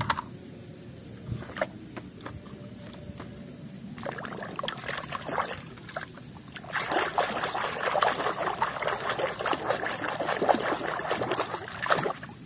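A hand swishing and churning water in a basin, quiet at first, then steady vigorous splashing and sloshing through the second half.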